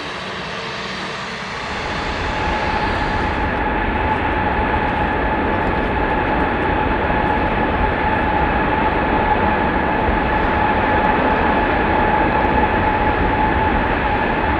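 Jet engine test run: an Airbus A380 engine held at steady high power inside a run-up hangar, a constant heavy rush with a steady high whine. About two seconds in it takes over from a quieter jet engine run on an Airbus A320 and the sound grows louder.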